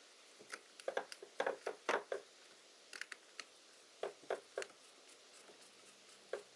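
Irregular light clicks and knocks from handling a carbon-fibre multirotor frame and working its strut bolts with a hex driver, in a few short clusters.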